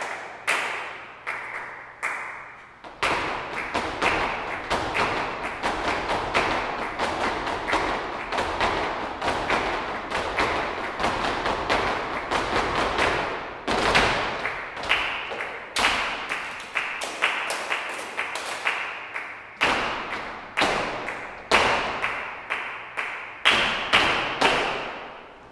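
Flamenco palmas (rhythmic hand clapping) and footwork stamping. A rapid, dense patter of strikes fills most of the stretch, with sharper, spaced accents at the start and near the end.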